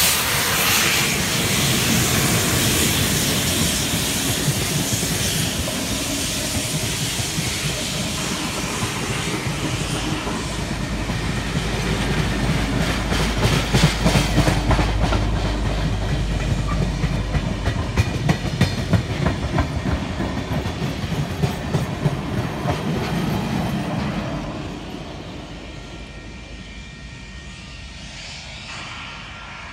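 A steam-hauled passenger train's tender, tank wagon and carriages rolling past close by, their wheels clickety-clacking in a quick run of clicks. The sound drops away about 24 seconds in as the last carriage passes.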